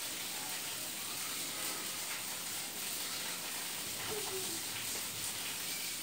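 Quiet, steady background hiss of outdoor ambience, with one faint brief note about four seconds in.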